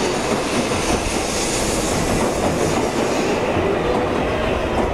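Shinkansen bullet train moving along the platform at low speed: a steady rumble and rush of wheels and running gear. Faint wheel squeal slides in pitch in the second half.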